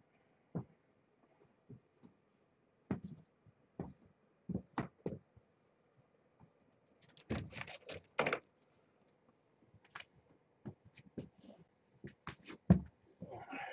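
Scattered light knocks and thumps with a few clicks, bunched together about seven to eight and a half seconds in, the loudest knock near the end.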